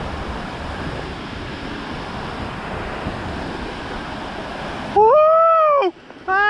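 Surf washing up the beach, with wind on the microphone. About five seconds in, this cuts off abruptly and a loud, high-pitched call comes in, rising and then falling for about a second. Another pitched sound starts near the end.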